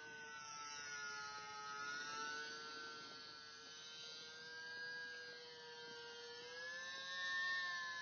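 RC Icon A5 model seaplane's motor and propeller whining steadily in flight, drifting slightly in pitch, then rising in pitch and growing louder about three-quarters of the way through as the plane comes closer or the throttle opens.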